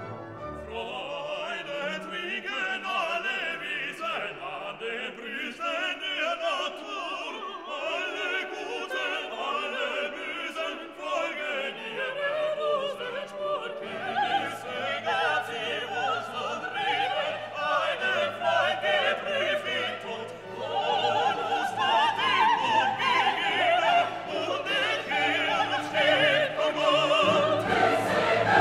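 Background music: classical operatic singing over an orchestra, growing fuller and louder in the second half.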